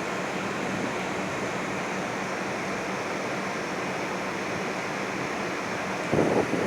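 Air-conditioning outdoor units running: a steady rushing of fan air with a low hum. A brief louder rumble breaks in near the end.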